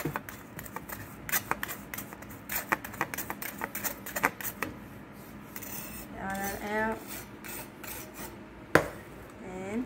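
A metal spoon scrapes and presses lumps of batter through a fine stainless-steel mesh strainer, making a run of irregular rasping scrapes and taps against the wire. There is one sharp tap near the end.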